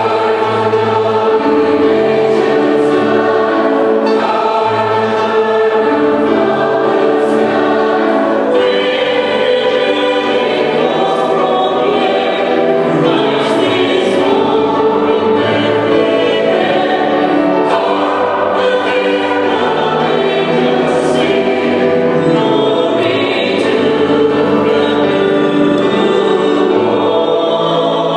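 A large mixed choir singing at full voice, with soloists singing into microphones in front of it.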